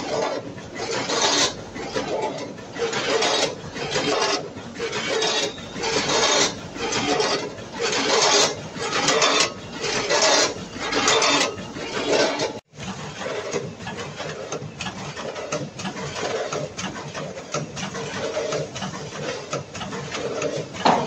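Multihead weigher running with gummy candies: a metallic clatter from its feed pans and hopper gates that surges about once a second. After a sudden cut, a vertical form-fill-seal bagging machine runs with a steadier mechanical clatter, also pulsing about once a second as it makes and drops filled bags.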